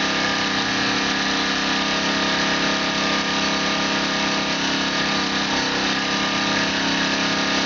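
Small engine of an ebike hybrid generator running steadily under load while charging the battery, with an even, unchanging drone. Its panels are lined inside with one layer of felt, and the sound echoes off the garage walls.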